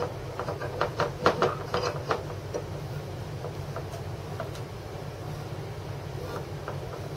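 A 10 mm threaded rod being screwed by hand into steel long coupling nuts: a quick run of light metal clicks and clinks in the first two seconds, then sparser, fainter ticks over a steady low hum.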